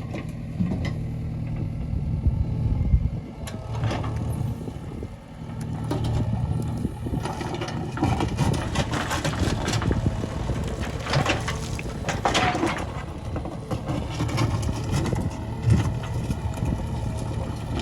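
JCB backhoe loader's diesel engine running steadily, with scattered clanks and scraping from about halfway through.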